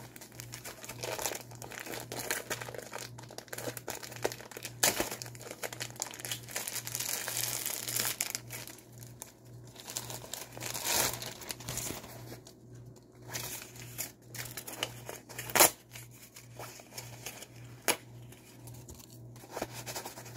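Thin plastic packaging crinkling and rustling as it is handled and pulled off a pillow, with a few sharp crackles. A steady low hum runs underneath.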